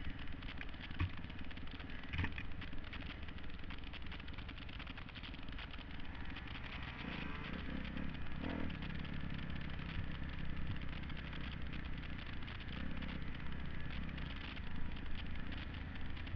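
2007 Kawasaki KX250F's four-stroke single-cylinder engine running as the dirt bike rides a rough forest trail, heard from a helmet camera. There is a steady rush of wind and frequent short knocks and rattles from the bumpy ground.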